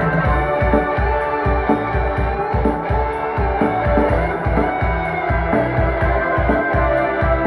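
Music with a steady fast bass beat, played loud through an 18-inch SPL Audio P201 subwoofer on test.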